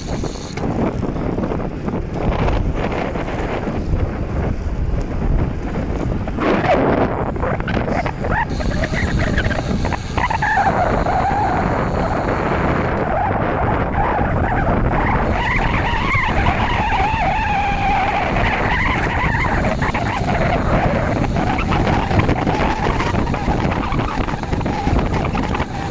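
Steady wind buffeting the microphone of a camera riding on a moving bicycle. From about ten seconds in, a faint wavering whine rises and falls beneath the rush.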